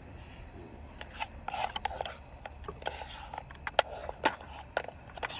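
Serving utensils clicking and scraping against dishes and a pot as curry is dished out, in a string of sharp ticks, the loudest about four seconds in.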